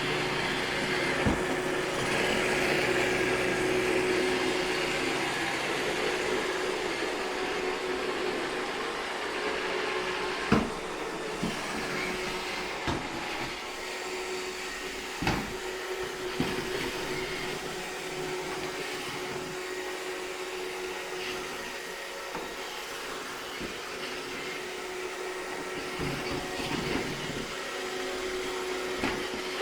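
iRobot Roomba 630 robot vacuum running with a steady hum, with a few sharp knocks now and then.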